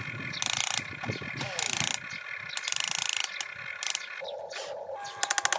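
Small electric gear motors of an RC excavator whirring in several short spells as the arm and bucket move, over a steady whine. Near the end comes a rapid run of clicking from the gears.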